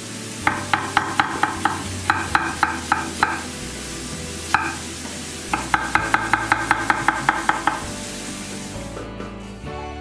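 Chef's knife chopping an onion on an end-grain wooden board, in three quick runs of strokes about five a second with a single stroke between them, over the steady sizzle of carrots frying in oil in a wok. Background music comes in near the end.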